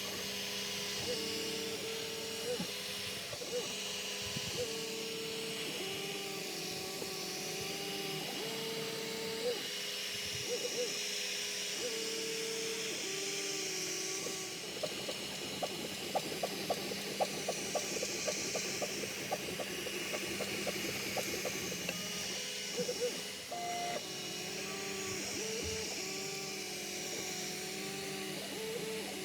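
Prusa i3 3D printer running: its stepper motors whine in steady tones that jump and waver in pitch as the print head changes moves, over a constant fan hiss and hum. About halfway through comes a stretch of rapid, closely spaced ticks.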